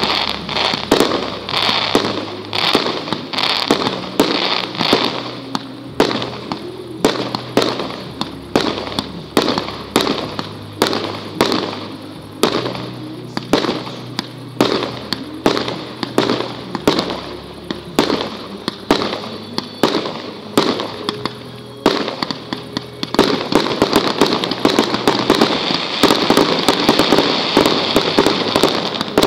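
Professional fireworks display of shots from multi-shot batteries firing in quick succession, about two sharp reports a second. After about twenty seconds the firing thickens into a dense crackle of overlapping shots and bursts.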